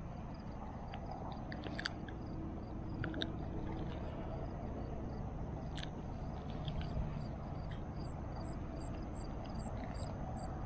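Wind rumbling on the camera microphone, with a few sharp clicks and a faint high chirp repeating evenly about three times a second.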